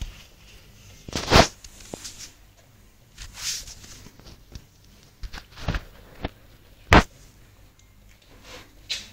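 Domestic cats rolling and scrabbling on a wooden floor: scattered scuffs, rustles and thumps, loudest about a second in and again about seven seconds in.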